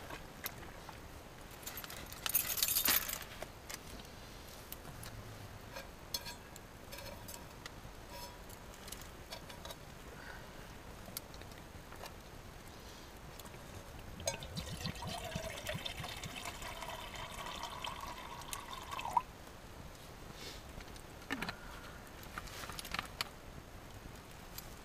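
Water poured into a container, its note rising steadily as the container fills for about five seconds before it stops. A short rustling scrape comes near the start, and light clinks of handled gear are scattered through.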